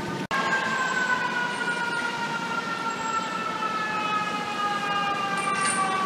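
Fire truck's mechanical siren winding down in one long, slowly falling wail over street traffic noise. The sound breaks off for a moment just after the start.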